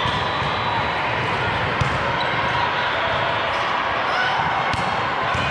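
Volleyballs being struck and bouncing on a gym court, a few sharp thumps over a steady din of voices in the hall.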